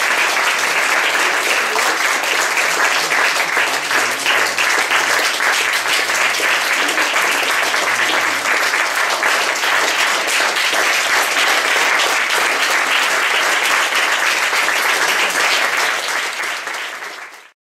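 Audience applauding with dense, steady clapping that fades down near the end and then cuts off.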